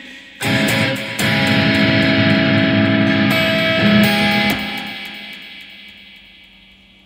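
Music: guitar chords struck twice in the first second or so and left ringing, the sound then slowly fading away over the last couple of seconds.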